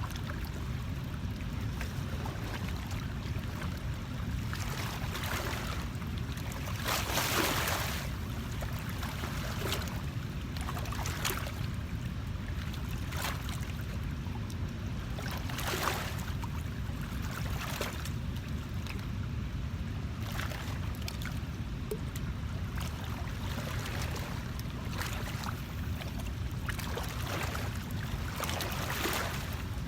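Water lapping and splashing in short irregular bursts over a steady low rumble of wind on the microphone, the biggest splash about seven seconds in.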